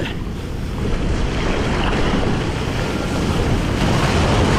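Breaking sea surf churning and splashing around a camera held at water level; the rush of water swells about a second in, and near the end a wave crashes over, throwing spray.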